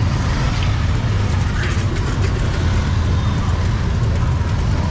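Steady low rumble of street traffic, with a few faint clicks and knocks.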